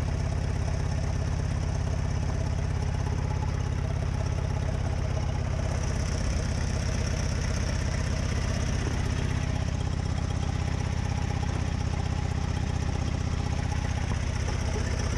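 Engine of an old red open-top 4x4 jeep running steadily at low revs, heard close up from the vehicle's body, with no revving.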